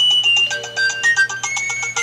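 Nokia 6030 mobile phone playing a ringtone through its small loudspeaker: a synthesized melody of held notes over a quick, even ticking beat.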